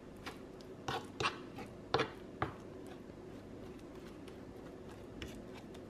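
Metal fork tapping and scraping against a wooden cutting board while mashing boiled apple: a few sharp taps in the first two and a half seconds, then only faint ticks.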